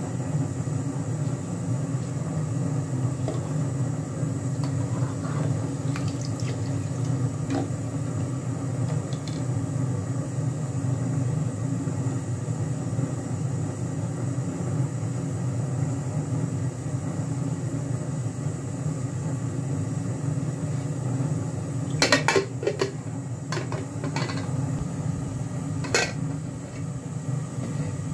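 Steady low roar of a gas stove burner heating a steel pot of milk tea. Near the end the steel ladle clinks against the pot several times in quick succession, then once more.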